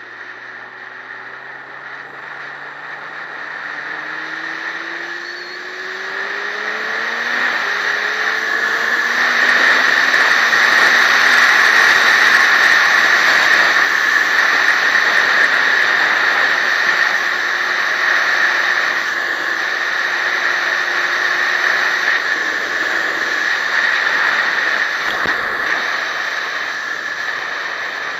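Motorcycle engine accelerating away through the gears, its pitch rising and dropping back at two shifts in the first several seconds. Then a loud, steady rush of wind and road noise at speed covers the engine.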